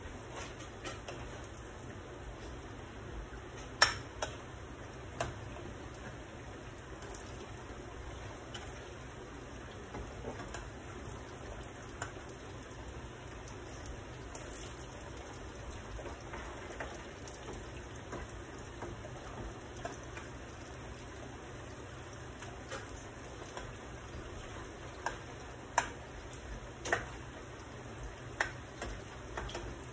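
Green plantain slices frying in oil with a steady, low sizzle: the first fry of tostones, before they are mashed. A fork clicks against the pan now and then as the slices are turned, with the sharpest clicks about four seconds in and again near the end.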